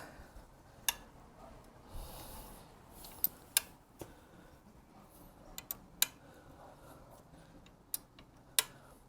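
Scattered sharp clicks and light knocks from hands and a tool working on an electric unicycle's suspension during preload adjustment, at irregular intervals over a faint background.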